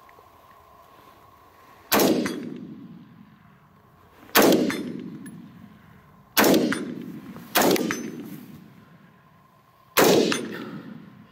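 Five single shots from an AR-15 rifle, fired one at a time at uneven intervals of about one to two and a half seconds. Each sharp report trails off for a second or so.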